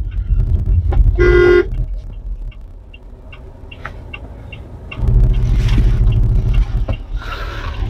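A vehicle horn toots once, briefly, about a second in, over the low rumble of a car driving, heard from inside the cabin. The rumble grows louder from about five seconds in.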